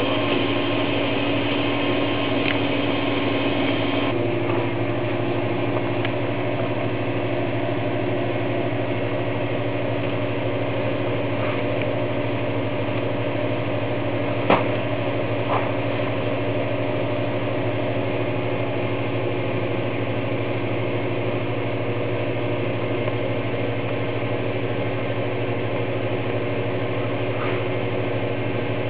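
AIT 6572 rotary heat press running with a steady mechanical hum. Some of its higher tones drop out about four seconds in, and two sharp clicks come about a second apart near the middle.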